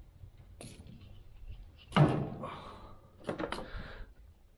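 Firewood logs being tossed onto a wood fire and knocking against each other: a light knock, a loud thud about two seconds in, then a couple of quicker knocks about a second later.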